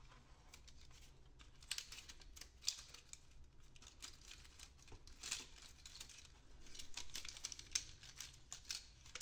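Faint clicks and rustling of plastic parts handled by hand, as a piece and a flat ribbon cable are worked loose from the plastic cartridge holder of an HP Officejet 6500 inkjet printer. Scattered sharp clicks, the clearest near the start and near the end, with a short rustle just before the last one.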